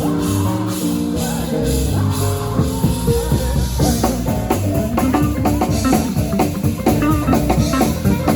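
Music: a few held instrumental notes, then a drum beat with guitar kicks in about three seconds in and carries on.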